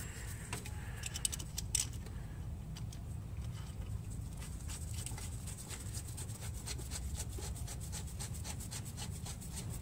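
Faint, irregular small metal clicks and scrapes as a steel mounting bracket and bolt are handled and fitted by gloved hands in an engine bay, over a steady low hum.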